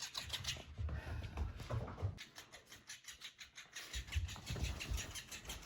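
Robotic flapping-fish cat toy wriggling, its tail flapping in a fast run of quick clicks, with low thuds in two spells.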